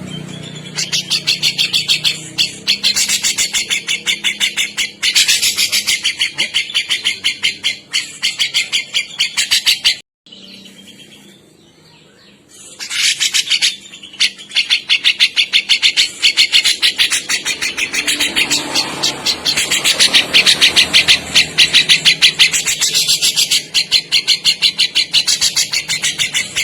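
Grey-cheeked bulbul (cucak jenggot) calling in a rapid chatter of evenly repeated high notes, about five a second. The chatter breaks off for a couple of seconds about ten seconds in, then resumes.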